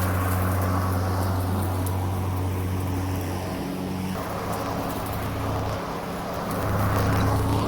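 Greenworks Pro 80V battery-electric lawn mower running, its motor and blade giving a steady low hum with grass-cutting noise. The hum dips a little in the middle and swells louder near the end.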